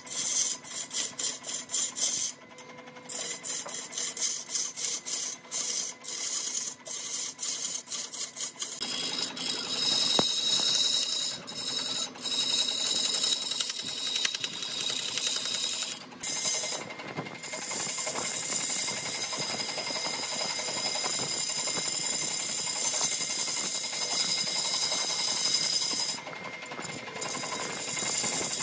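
Wood being worked with an abrasive tool. First comes a run of quick rasping or scraping strokes, about three a second, then a steadier continuous scraping or sanding noise that breaks off briefly a few times.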